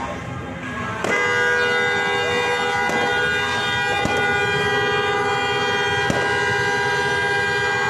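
Aerial fireworks going off in sharp bangs every second or two over a steady, many-toned horn blare that starts about a second in.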